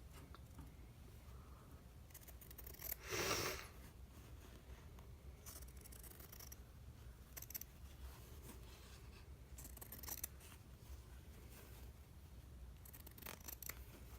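Fabric scissors cutting through cloth: scattered faint snips of the blades closing, in small clusters, with one louder rustle about three seconds in.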